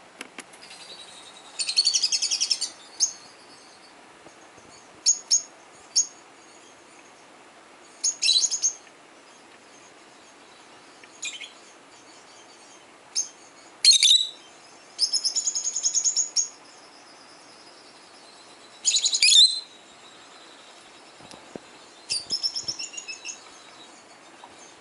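Recorded lovebird calls played through laptop speakers: bursts of high, sharp chirps and rapid chattering trains, with pauses of a second or more between them.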